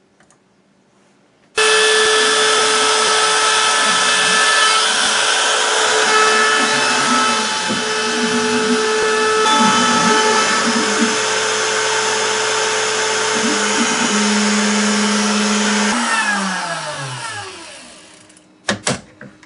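Router motor on a Shapeoko CNC switches on abruptly and runs steadily with a high whine for about fourteen seconds while cutting, then is switched off and spins down with a falling whine.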